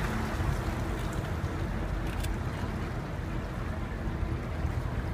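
Boat engine running with a steady low hum, under a wash of water and wind noise.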